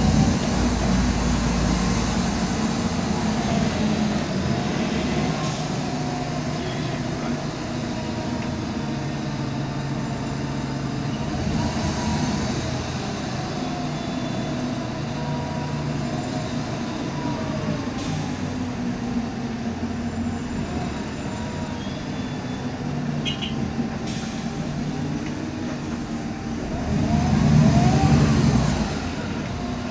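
A 2010 MAN Lion's Classic CNG city bus heard from inside the cabin while driving: a steady engine and drivetrain drone with a differential whine that glides up and down in pitch, swelling louder near the end. The noisy differential whine is the uploader's point.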